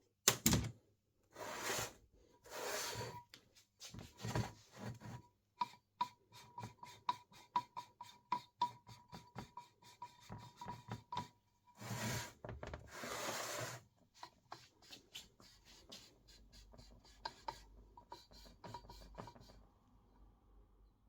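Hand work on a metal part: several long rubbing strokes and a dense run of quick, light clicks over a faint metallic ring, dying away near the end.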